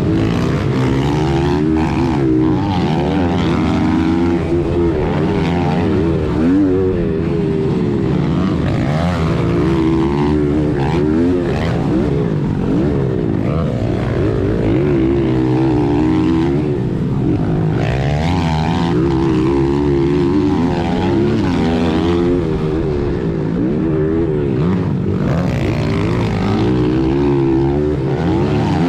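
Small four-stroke single-cylinder pit bike engine revving hard, heard from on the bike: the pitch climbs and drops again and again as the throttle is opened and closed through the turns and straights of a motocross track.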